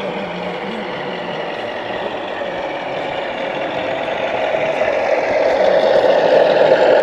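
Large-scale model diesel locomotive running toward the listener hauling a train of wagons, a steady engine-like drone that grows louder over the last few seconds as it draws near.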